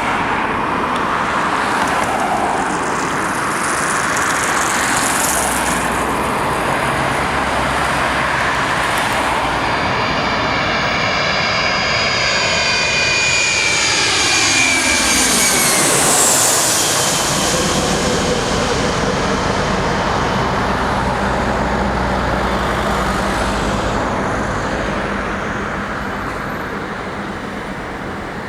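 Boeing 737-400 on landing approach, its CFM56-3 turbofans passing low overhead: the jet noise swells to a peak a little past halfway with a whooshing sweep falling in pitch, then slowly fades.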